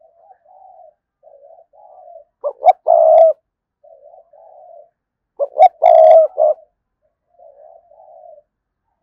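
Spotted dove cooing: soft, low coo phrases, broken twice by a loud coo phrase, about two and a half and five and a half seconds in. It is a decoy dove's cooing call, the kind used to lure wild doves.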